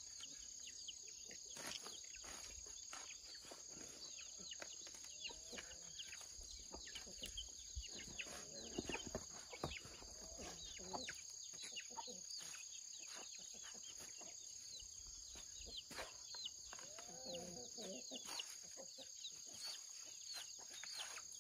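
Chickens clucking and calling over a steady high-pitched background hum, with scattered sharp taps and knocks.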